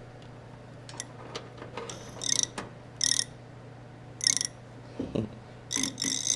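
A plastic zip tie being pulled tight through its lock in several short ratcheting pulls, with a few light clicks before the first pull.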